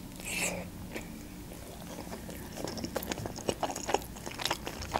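Close-miked eating of a Georgian khinkali dumpling: a bite near the start, then wet chewing with a run of small mouth clicks in the second half.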